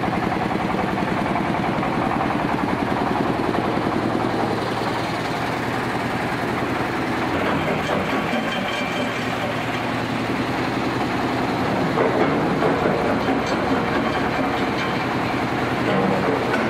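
Jaw stone crusher plant running: a steady machine drone with a fast, even pulse. About halfway through, a harsher noise of stone passing through the crusher and screen joins in.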